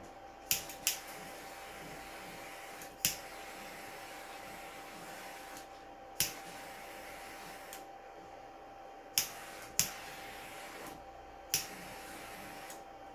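Small handheld electric blower with a metal nozzle, switched on and off about four times. Each run is a steady airy hiss, and sharp clicks come as it is switched.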